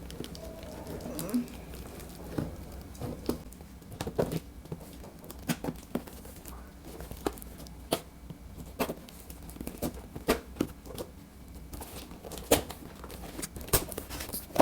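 A parcel's packaging being cut open with a knife and torn by hand: irregular crinkling, tearing and sharp crackles throughout.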